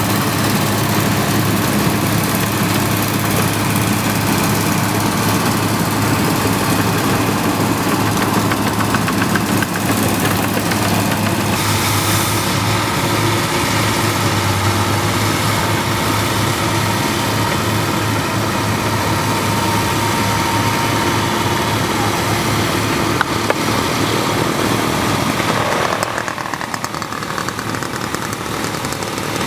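Rice combine harvester's diesel engine running steadily, a little quieter in the last few seconds.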